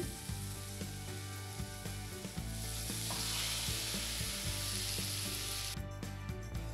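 Chopped onion and garlic frying in butter in a saucepan, sizzling steadily while a silicone spatula stirs, as diced tomato is tipped in. The sizzle gets louder about two and a half seconds in.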